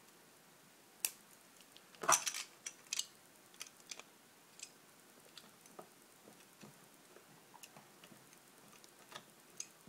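Small screwdriver working at tiny screws in the plastic housing of an Xbox 360 controller: a few sharp light clicks in the first three seconds, then faint scattered ticks.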